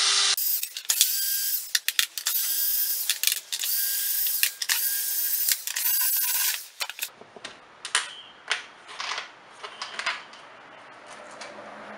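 Cordless drill backing out the engine mounting bolts of a Stihl BR420 blower in about five short runs of a second or so each, then several light clicks and rattles.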